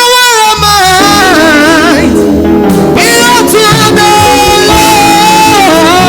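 Live gospel praise music: a lead singer's voice slides up at the start and later holds a long wavering note, over full band accompaniment.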